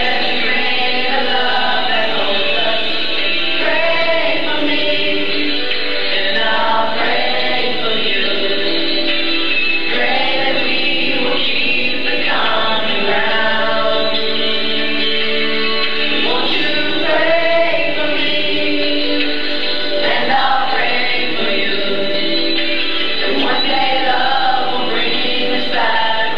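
Choir singing, with long held chords that shift every second or two.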